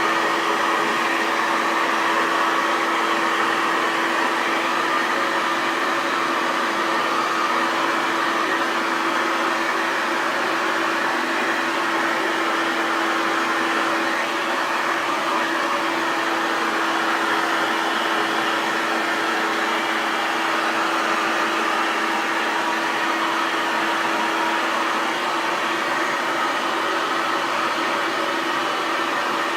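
Hair dryer running continuously: a steady rush of blown air over a constant motor hum.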